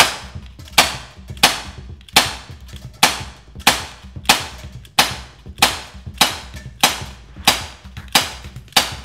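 Umarex Glock 19 CO2 non-blowback BB pistol firing 4.5 mm steel BBs in a steady string, about three shots every two seconds, each a sharp pop with a short fading tail.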